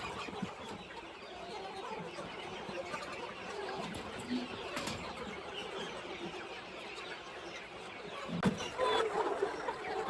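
Chickens clucking, with a sharp knock about eight and a half seconds in.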